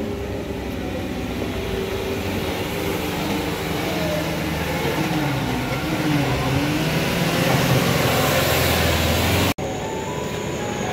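Motor vehicle engine revving up and down, its pitch rising and falling several times and getting louder toward the end. The sound cuts off abruptly about nine and a half seconds in.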